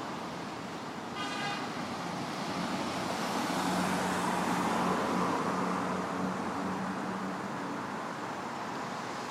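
Road traffic: a vehicle passes, growing louder to a peak in the middle and fading again, with a low steady engine tone. A brief high-pitched tone sounds about a second in.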